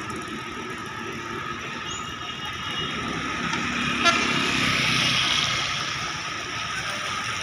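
Motor scooters passing close by on a wet road amid general traffic noise, swelling louder in the middle. A sharp click about four seconds in.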